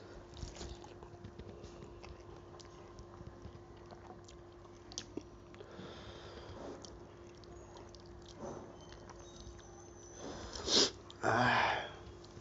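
Close-miked chewing and the soft squish and clicks of fingers mixing rice and dal on a metal plate, over a faint steady hum. Near the end come two loud noisy sounds in quick succession, a sharp short one and then a longer one of about half a second.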